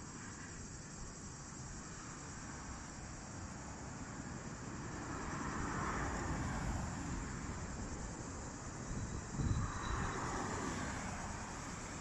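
Motorway traffic going by: a steady rushing noise, with a vehicle passing loudly around the middle and another near the end, just after a brief low thump.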